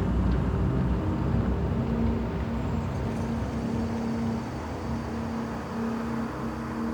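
Synthetic tomb soundscape: a steady low rumble and rushing noise, with soft held low drone notes fading in and out. The rumble is strongest at the start and eases after about a second.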